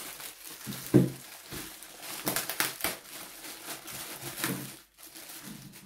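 Clear plastic packaging bag crinkling and rustling as it is pulled off a speaker by hand, with a sharp knock about a second in.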